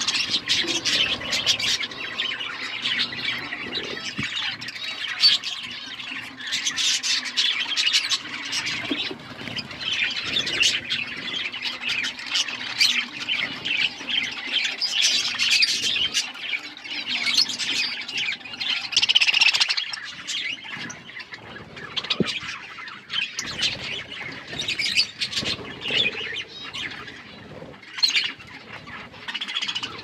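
A flock of budgerigars chattering: many short, overlapping chirps and squawks, thinning out somewhat in the last third.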